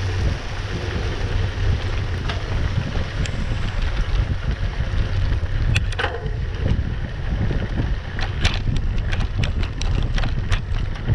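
Wind buffeting the microphone of a camera riding on a mountain bike, over the rumble of knobby tyres on a dirt road. Sharp clicks and rattles of the bike over bumps come now and then, most often in the last few seconds.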